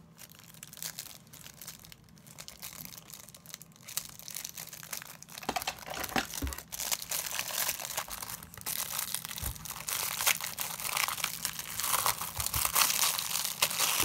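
Plastic wrapping on a puzzle cube crinkling and tearing as it is handled and pulled open. It is an irregular crackle that grows louder through the second half, with a few soft low thumps.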